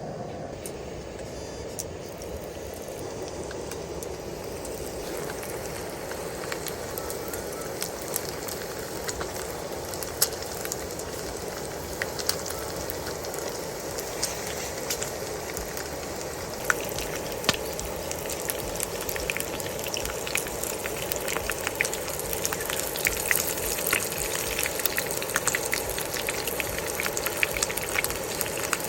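Fire crackling over a steady hiss, the sharp pops coming more and more often in the second half.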